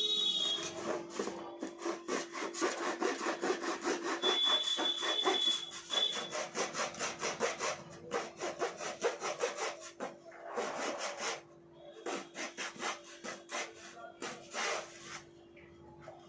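A blade sawing rapidly back and forth through the thick cardboard casing of a sky shot firework. The strokes run steadily for about ten seconds, then come in short bursts with pauses.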